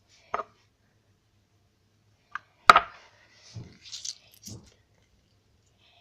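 Handling sounds from a stiff lump of homemade slime being worked by hand: a few short knocks and squishes, the loudest a sharp knock a little under three seconds in, followed by softer squishing and rustling.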